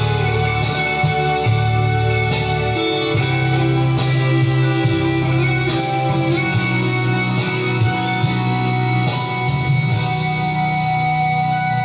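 Instrumental intro of a recorded Brazilian evangelical pop-band song, the lead-in before the vocals: guitar over bass and held chords, a new chord struck about every second and a half to two seconds.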